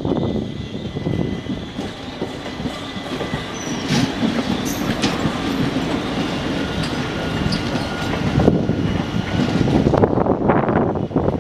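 Passenger train coaches rolling past, their wheels clattering in a rapid rhythm over rail joints and points, with a faint high wheel squeal. The clatter is loudest at the start, eases in the middle and builds again near the end.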